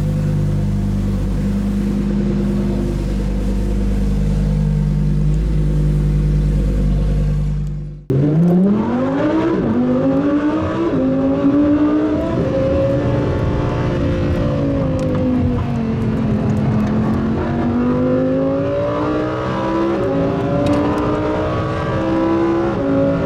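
Lamborghini Huracán Performante Spyder's V10 engine at a steady idle for about eight seconds, then after an abrupt cut, revving and accelerating, its pitch climbing, dropping back and climbing again.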